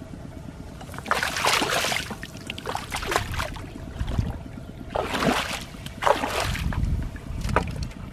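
Hands sloshing and splashing in shallow muddy water, in several bursts, as a person gropes through the mud and wades.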